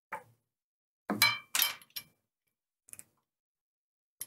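Plastic cable clips being snapped onto the tubes of a switch-mounting arm, with the cables handled: short clicks and rattles, the loudest cluster about a second in and a sharp single click at the end.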